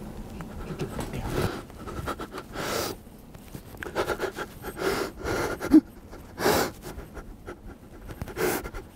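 A man breathing hard, panting in several heavy, uneven breaths, with one short catch of the voice among them, in the excitement of having just shot a big whitetail buck with his bow.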